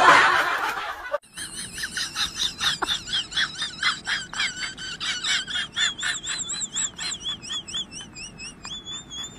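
A short burst of noise that cuts off after about a second, then a rapid series of high, bird-like chirps, about four a second, with a warbling whistle-like tone.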